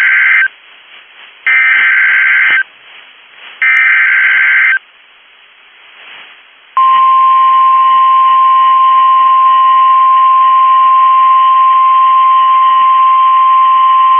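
NOAA Weather Radio Emergency Alert System signal: three shrill bursts of digital SAME header data, each about a second long, the first ending half a second in. About seven seconds in, the steady 1050 Hz warning alarm tone starts and holds, announcing a new alert, here a severe thunderstorm warning.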